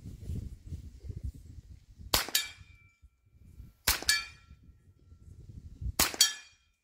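Three shots from a CBC 7022 semi-automatic .22 LR rifle, spaced about two seconds apart. Each crack is followed by a short metallic ring.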